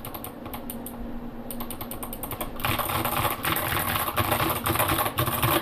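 Mechanical keyboard with clicky Kailh Box White switches and SA keycaps being typed on: a quick run of key clicks, lighter and sparser for the first couple of seconds, then denser and louder until it stops abruptly.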